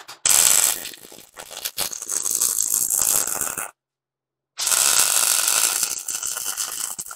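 MIG welder's arc crackling and sizzling as it welds steel gussets onto a steel tube. Two weld runs with a short silent break between: the first stops about three and a half seconds in, and the second starts about a second later.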